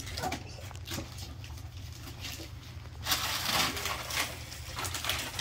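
Wrapping paper rustling and tearing as a present is unwrapped, with the longest tear about three seconds in.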